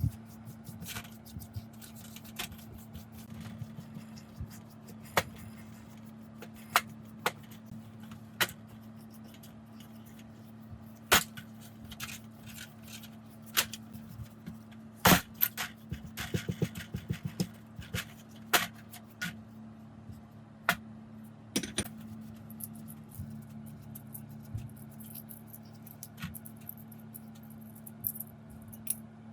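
Metal parts and hand tools being handled during work on a rusty steering gearbox: scattered sharp clinks and taps, busiest around the middle, over a steady low hum.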